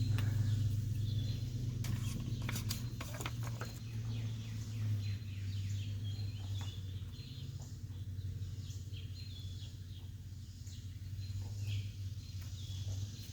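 Small birds chirping in short calls throughout, over a steady low hum, with a few light clicks in the first few seconds.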